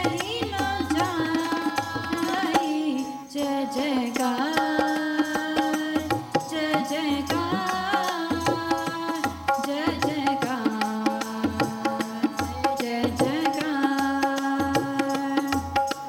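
Shabad keertan: a Yamuna harmonium (vaja) playing the melody and a group of women's voices singing in unison, over tabla keeping a steady rhythm with repeated low bass-drum strokes.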